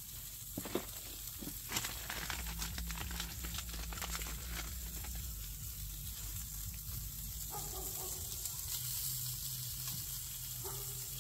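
Pork chorizo and potatoes sizzling steadily in a frying pan, with a few sharp clicks of a utensil against the pan in the first couple of seconds.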